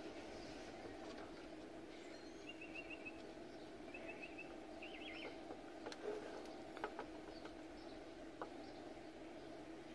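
Faint background sound: a bird's short trills of rapid chirp notes, three times, over a steady low hum, with a few soft clicks later on.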